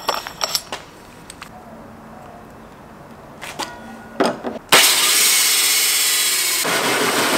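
Cordless drill driving a brand-new 121 mm hole saw into a ute's sheet-metal front guard, a loud harsh cutting noise that starts suddenly about two thirds of the way in. Before it, a few light clicks as the hole saw is handled and fitted to the drill.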